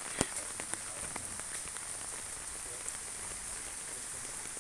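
Steady rain falling, an even hiss with scattered drips and patters in the first second or so.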